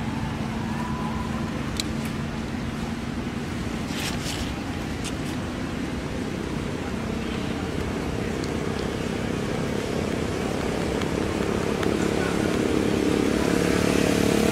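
A motor vehicle engine running steadily, growing louder toward the end, with a few short clicks and rustles along the way.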